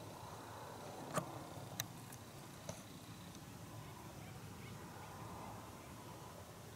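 Quiet, steady background hiss, broken by two sharp clicks about a second in and a fainter click a little later.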